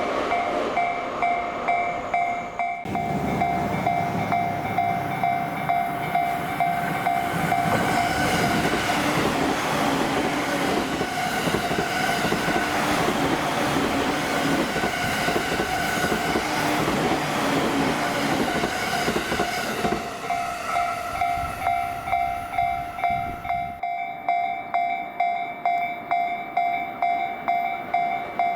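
Japanese level-crossing warning bell clanging in a steady rhythm, about two strikes a second. A train passes through the closed crossing from a few seconds in until about two-thirds of the way through, its wheels rumbling and clattering over the rail joints. After it the bell rings on alone.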